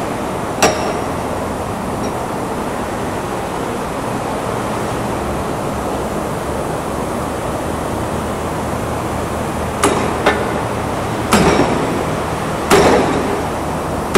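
Metal hammer blows on steel wire rope held in a bench vise, struck while working a Flemish eye splice: one sharp strike about half a second in, then four more over the last four seconds, each ringing briefly, over a steady background noise.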